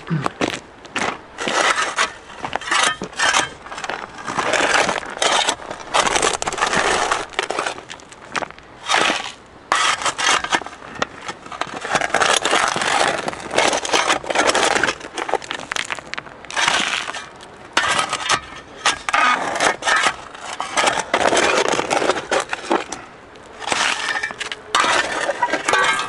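Steel shovel digging into river gravel: the blade scrapes and crunches into the stones in irregular bursts, one scoop after another, with pebbles clattering against each other.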